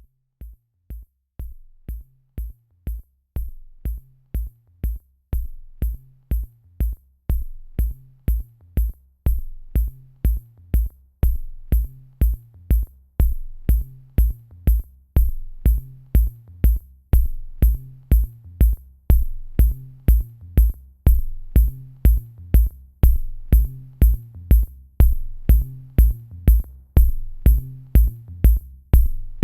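Background music with a steady beat, about two beats a second, fading in gradually over the first several seconds.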